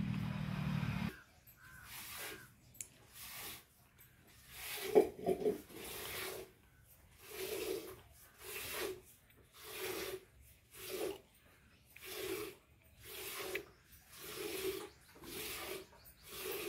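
Cow being hand-milked: jets of milk squirting into a steel pail in a steady rhythm of short hissing spurts, often in pairs, about one and a half a second. A low steady drone cuts off about a second in.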